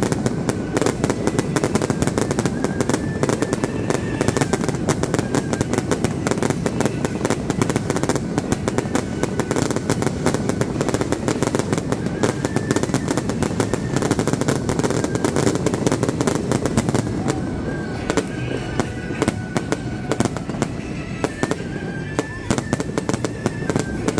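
Aerial fireworks going off at close range: a dense, continuous crackling of bursts and crackling stars, thinning a little in the last several seconds.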